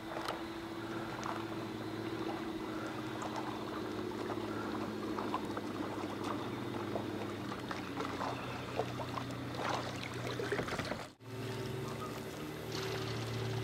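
Kayak paddle dipping into the water, with small splashes and water trickling and dripping off the blade, over a steady low hum. The sound breaks off for a moment about eleven seconds in.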